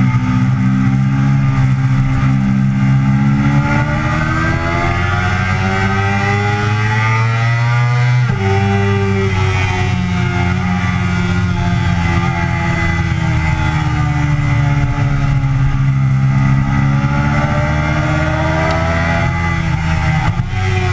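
Yamaha sportbike engine under throttle at track speed, revs climbing for several seconds, breaking sharply about eight seconds in, sagging, then climbing again with another break near the end, over a rush of wind.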